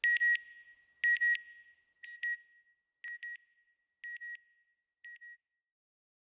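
Electronic beeping in quick pairs, one pair a second, six times, each steady and high in pitch and fainter than the last until it fades out.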